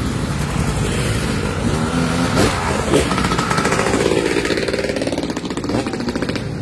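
Enduro dirt bike engine revving as the bike rides out through the start and passes close by, its pitch rising and falling several times. It is loudest about three seconds in.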